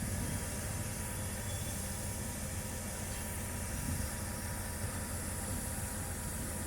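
Heavy machinery engine running steadily: a constant low rumble under an even hiss, with a faint steady whine.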